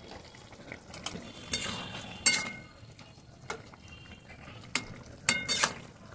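Metal spatula stirring a thick vegetable curry in a metal kadai. It gives soft wet stirring with irregular sharp clinks against the pan, several of which ring briefly.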